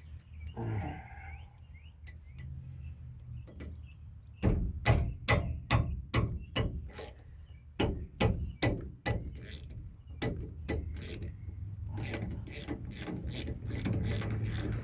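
Hand socket ratchet clicking as it is swung back and forth, backing out a brake caliper bolt. The clicks come in a steady run starting about a third of the way in and get quicker near the end.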